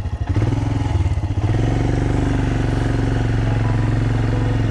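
Royal Enfield Himalayan single-cylinder engine running under way, heard from on the bike; uneven for about the first second and a half, then holding a steady pitch.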